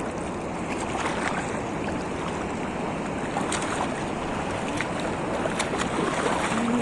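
Shallow seawater washing and sloshing in a steady rush, with scattered small splashes.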